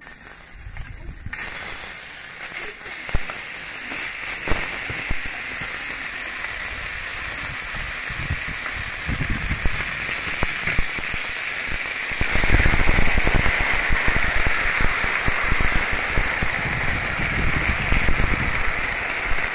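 Beef steak sizzling on a hot cast-iron sizzling plate, a steady crackling hiss with a few sharp clicks of tongs on the plate. About twelve seconds in the sizzle gets louder and fuller as gravy is poured over the meat.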